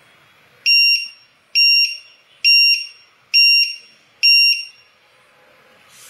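Matek lost-model beeper's buzzer sounding five short, high-pitched beeps a little under a second apart. This is its low-voltage alarm: the supply has dropped just below the 11.1 V threshold for a 3-cell battery.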